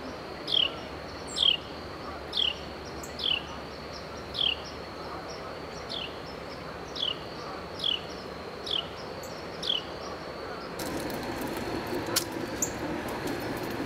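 A bird calling: a short, clear down-slurred whistle repeated about once a second, ten times, over a faint steady insect drone. About eleven seconds in, a broad rumbling noise rises under it, with a sharp click soon after.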